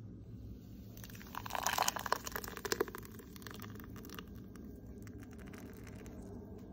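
Thick, frothy green chutney poured from a blender jar into a glass bowl: a run of wet splashing and spattering that starts about a second in and lasts about three seconds.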